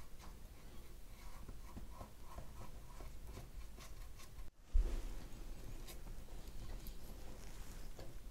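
A small paintbrush rubbing and dabbing along a seam on the wooden stern of a model ship, washing off excess glue: faint, soft scratchy strokes, broken by a brief dropout about halfway.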